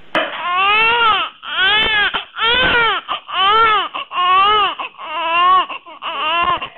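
Newborn baby crying: a run of about seven wails, each rising then falling in pitch, with short breaths between.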